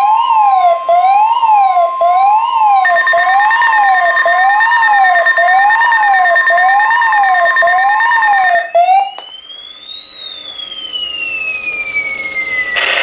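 Weather radio tornado-warning alarm, sounding for a test tornado warning: a steady high tone under a shrill siren tone that sweeps up and down nearly twice a second, with a second, higher steady tone joining about three seconds in. The alarm cuts off after about nine seconds. A quieter, slower siren tone follows, rising for about a second and then falling away over the next three.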